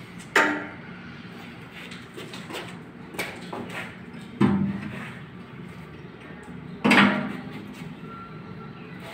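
Three sharp knocks of ceramic tile being handled and set down, about half a second, four and a half seconds and seven seconds in, each ringing briefly, over a steady low hum.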